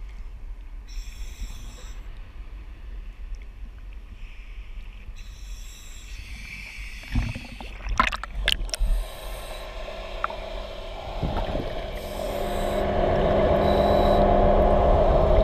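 Sea water lapping and splashing against a camera as it is dipped below the surface beside a ship's hull, with a few sharp splashes about halfway through. It is followed by a steady underwater rushing noise that grows louder near the end.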